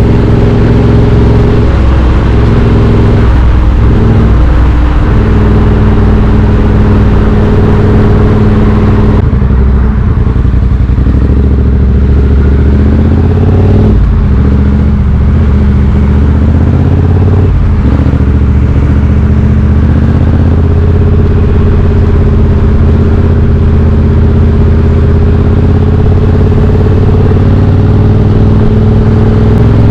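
Triumph Street Twin 900's 900 cc parallel-twin engine running through British Customs slash-cut exhaust tips while riding, loud and close. The note stays mostly steady, with short breaks and shifts in pitch around four seconds in and again around fourteen and eighteen seconds in.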